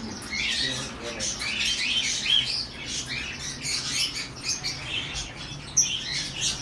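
Many small caged parrots and budgerigars chirping and squawking together, a dense continuous chatter of short high calls.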